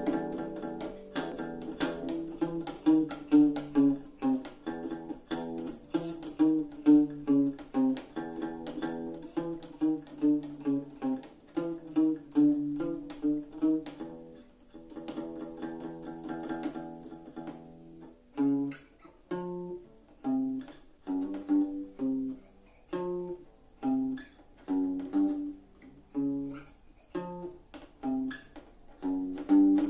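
Small acoustic guitar picked one note at a time in a simple tune: quick, closely spaced notes at first, then slower, separate notes with gaps between them from a little past halfway.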